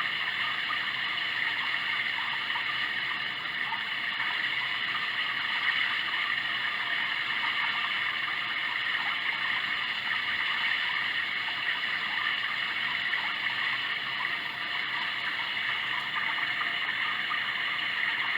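Sound Oasis ambient sound machine playing a steady running-water track, like a flowing stream.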